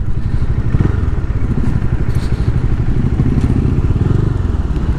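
Motorcycle engine running at low revs with a steady, rapid pulsing as the bike rolls slowly over a dirt lot.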